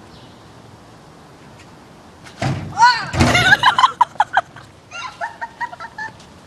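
Quiet outdoor background, then about two and a half seconds in a thump and a loud shriek as a rider is thrown off a spinning playground seesaw, a second heavy thump, and a quick run of short bursts of laughter.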